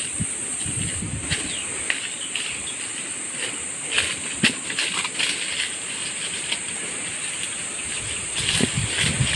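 Leaves and twigs rustling and crackling in irregular bursts as a long stick is pushed and pulled through tree branches, over a steady high hiss.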